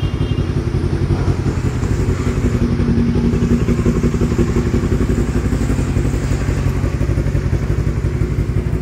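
Yamaha R3's parallel-twin engine idling steadily, with fast even pulsing.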